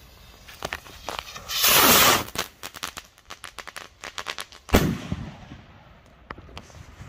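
Funke Gigant salute rocket firing: a loud rushing whoosh about a second and a half in that falls in pitch as it climbs, a run of small crackling pops, then a single sharp bang near the end that rolls away in an echo.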